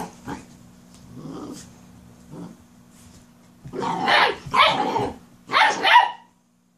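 A Weimaraner and a German Shorthaired Pointer puppy play-fighting, growling and barking: a few faint growls in the first half, then three loud bursts of growling barks from about four seconds in, cutting off abruptly near the end.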